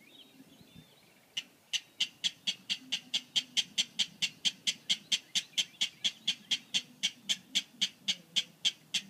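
A rail (King or Clapper Rail type) calling: a long, even series of sharp, clicking notes at about four a second, starting about a second and a half in.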